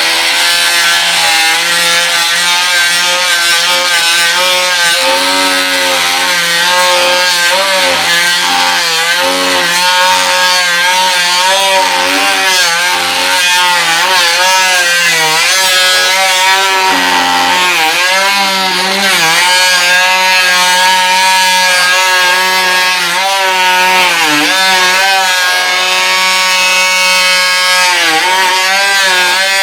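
Milwaukee M12 C12 MT 12-volt cordless oscillating multi-tool plunge cutting into timber: a steady, loud buzz whose pitch sags briefly several times, most clearly in the second half.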